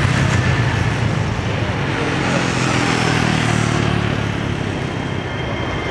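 Steady engine noise: a low hum with a broad rushing sound over it, easing slightly toward the end.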